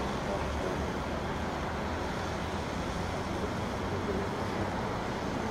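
Steady road traffic noise: an even, low rumble of passing vehicles with no distinct events standing out.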